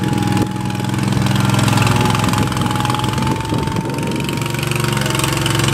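Gas engine of a 2013 Dixie Chopper Classic 2760 zero-turn mower running steadily, with a faint steady whine alongside it.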